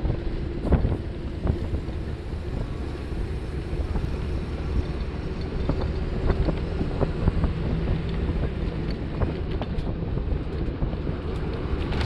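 Steady rumble of a road vehicle in motion, engine and tyre noise, with wind rushing over the microphone.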